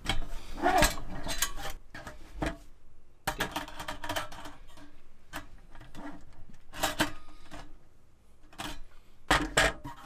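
Stainless steel parts of a Uniflame Fire Grill Solo fire pit clinking and scraping as they are handled and fitted together, including a wire cooking grate. Sharp metal clicks come at intervals, loudest about a second in, around seven seconds in, and in a quick cluster near the end.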